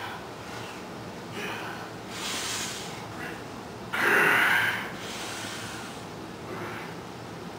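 A lifter breathing hard while bench pressing a 225 lb barbell: a few short, forceful exhalations through the nose and mouth as he works through the reps. The loudest comes about four seconds in.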